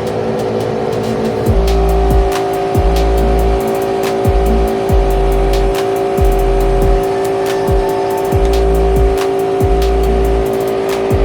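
Background music with a steady electronic beat: deep kick drums about twice a second under heavy bass notes and held synth tones.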